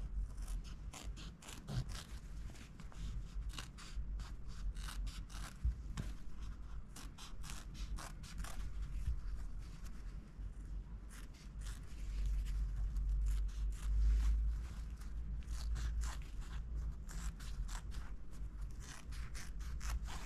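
Scissors cutting through thin lining fabric: runs of short, crisp snips with brief pauses between them.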